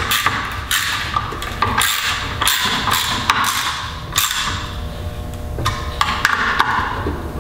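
Small hand driver clicking and knocking against an alternator's metal case as the screws of a new voltage regulator are tightened. The sharp clicks come irregularly, a few each second.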